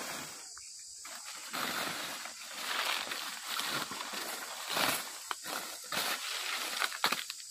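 Footsteps crunching and shuffling through dry fallen leaves, with leaf litter and twigs rustling and snapping as a person pushes through undergrowth. There are a few sharp cracks near the end.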